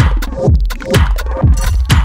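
Background electronic dance music with a steady beat: a deep kick drum dropping in pitch about twice a second, with crisp hi-hats and no vocals.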